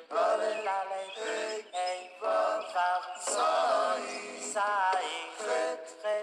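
A song with a high, synthetic-sounding singing voice, in short notes that waver in pitch.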